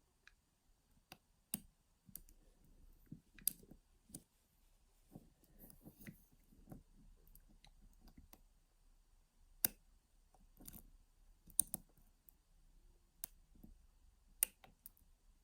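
Lock picking on a Carl F euro cylinder lock with a homemade pick bent from a bra underwire. Sparse, sharp metallic clicks come a second or two apart as the pick works the pins, over faint handling rustle.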